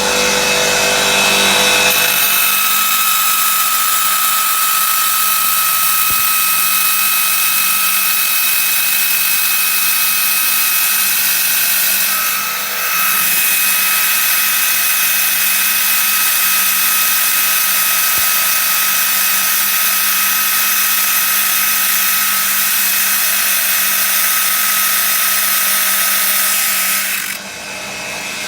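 VULKAN-A-75 industrial belt grinder running under load, its abrasive belt grinding a workpiece with a steady hiss and a high whine. The sound eases briefly about twelve seconds in and drops off near the end.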